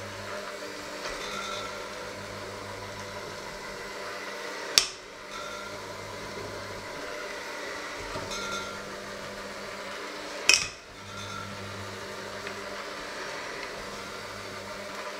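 Electric hand mixer running steadily, its beaters working a thick mixture in a stainless steel bowl. Twice, about six seconds apart, there is a loud sharp metallic clank of the beaters against the steel bowl.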